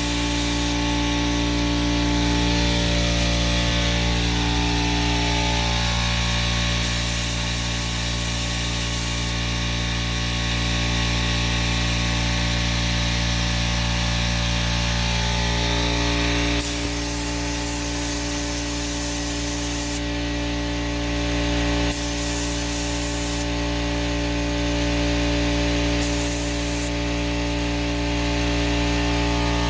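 Paint spray gun hissing in repeated bursts as the trigger is pulled and released, over a steady machine hum.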